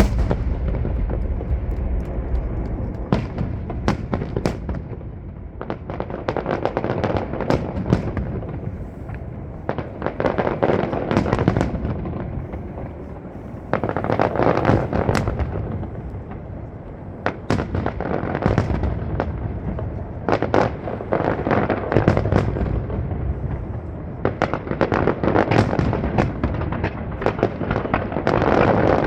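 Starmine fireworks barrage: many shells bursting in quick succession with dense crackling over a deep rumble, kicking in suddenly at the start and swelling in waves with short lulls between.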